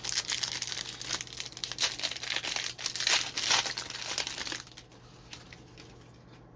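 A foil trading-card pack wrapper being handled and torn open, a dense crackling crinkle with sharp snaps that stops about two-thirds of the way through.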